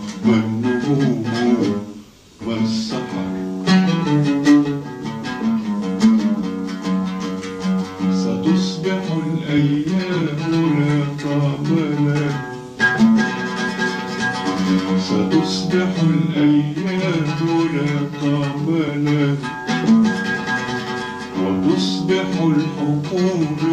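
Solo oud playing a running melody of plucked notes, with a brief break about two seconds in.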